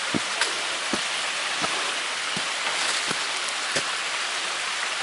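Steady rush of a creek or small waterfall close by, with a hiker's footsteps on the trail landing about every 0.7 seconds.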